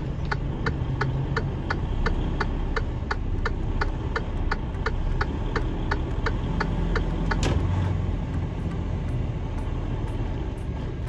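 Low, steady drone of a semi truck's engine heard from inside the cab in slow traffic, with an indicator clicking about three times a second that grows fainter after about eight seconds. A short hiss comes about seven and a half seconds in.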